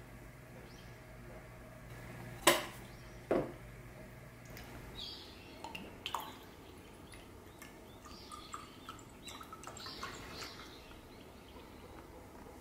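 White wine poured from a bottle with a metal pour spout into a wine glass: a light trickle and drips. Before it, about two and a half seconds in, come two sharp knocks under a second apart, the loudest sounds heard.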